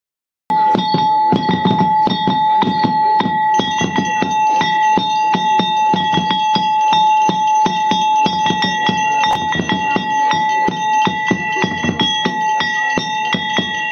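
A metal hand bell rung rapidly and without pause, its clear ringing tones held by quick repeated strikes, over a low pulsing beat. The sound starts after a half-second gap.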